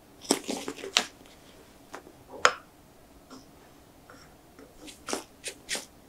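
Soft, spongy matcha steamed bun being pulled apart and squeezed in the hands close to the microphone: short crackly tearing and squishing sounds. There is a cluster in the first second, a single loud one about two and a half seconds in, and three quick ones near the end.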